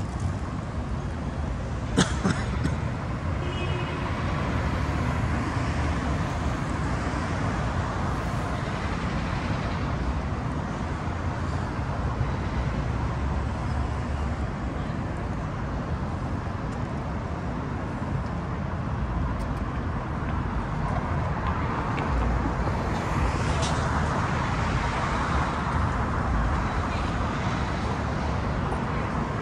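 City street traffic: cars passing, a steady wash of tyre and engine noise that swells louder about two-thirds of the way through, with a single sharp click about two seconds in.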